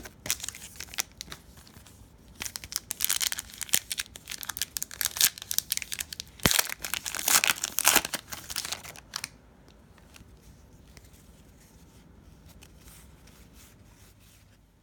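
Plastic wrapper of a trading-card pack being torn open and crinkled: a dense run of crackling tears and rustles for about nine seconds, loudest in the middle, then only faint handling.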